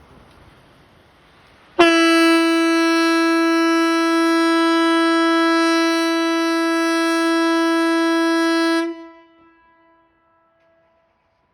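'Hesa Fredrik' civil defence warning siren sounding one loud, steady blast at a single pitch. It starts abruptly about two seconds in, holds for about seven seconds, then cuts off and dies away. This is one of the seven-second blasts of the VMA 'important message to the public' signal.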